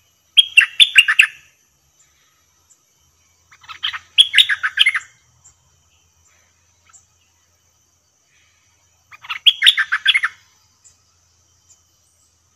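Stripe-throated bulbul singing close by: three short phrases of quick notes, each about a second long, a few seconds apart.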